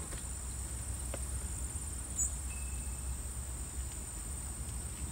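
A steady, high-pitched chorus of insects chirring in the summer garden, over a low, even rumble.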